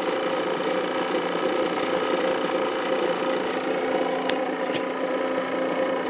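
Refrigerant recovery machine running with a steady hum, pumping R-22 out of an old air-conditioning unit into a recovery tank. Two faint ticks come a little past the middle.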